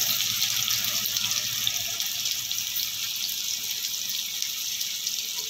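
Chopped onion sizzling as it fries in hot oil with browned cumin seeds in a kadhai: a steady hiss that eases a little after about two seconds.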